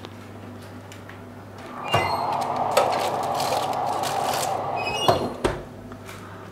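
An oven door opens with a metallic clank, a steady rushing noise runs for about three seconds while it is open, and the door shuts with another ringing clank and a thump about five seconds in.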